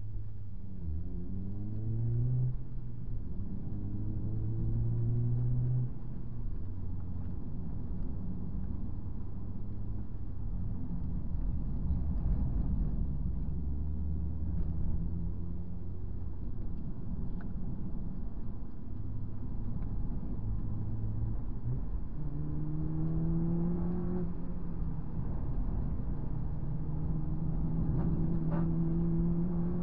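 Honda Civic Type R FD2's 2.0-litre four-cylinder engine heard from inside the cabin while lapping a circuit under hard driving. It climbs in pitch under acceleration in the first few seconds, runs lower through the middle, and climbs steadily again over the last several seconds, over a constant road and tyre rumble.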